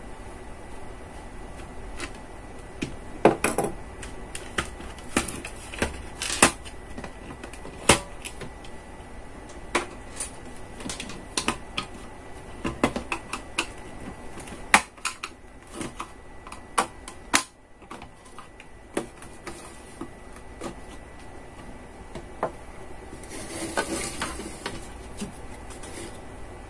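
Plastic housing of a D-Link Wi-Fi router being pried open with a screwdriver: irregular sharp clicks and snaps as the case's clips let go, with taps and scrapes of the screwdriver on the plastic. A short rustle of handling comes near the end.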